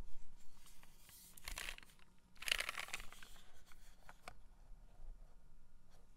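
A TGR x Monokei Tomo mechanical keyboard being lifted and flipped over by hand onto a desk mat: two stretches of scraping and rustling, the louder one about two and a half seconds in, with a few light knocks and clicks.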